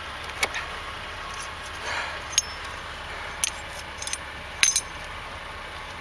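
Light metallic clicks and clinks, about five scattered strikes with a close double near the end, from small metal tire-repair tools being handled.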